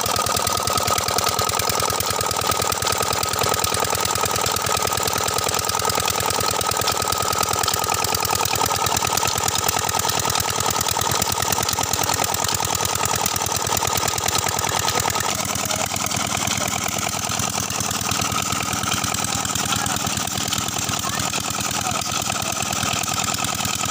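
Old Petter-type stationary diesel engine running steadily with an even, rapid beat, belt-driving a water pump. The sound shifts slightly about two-thirds of the way through.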